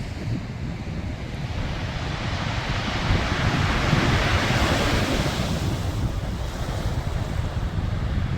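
Sea waves: one swells in and washes through about midway, then fades. Wind buffets the microphone with a steady low rumble.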